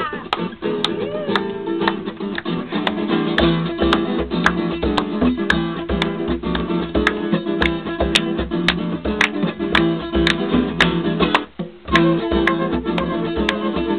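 Live acoustic guitar strumming and picking in a Latin ballad style, with a flute playing along in an instrumental passage between sung lines. A low steady beat joins about three and a half seconds in.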